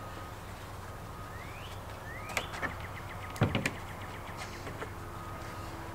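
Plastic gas can being handled on a table: two short rising squeaks, then a run of quick clicks and a few hard knocks around the middle, over a faint steady hum.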